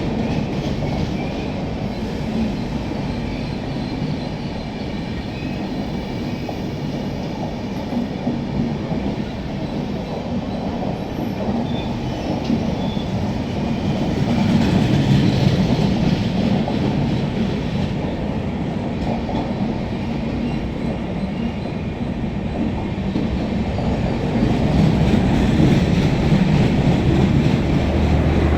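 Express passenger train running through a station at speed: a steady rumble of wheels on rail, with a few rhythmic clicks near the start and swells in loudness around the middle and again near the end.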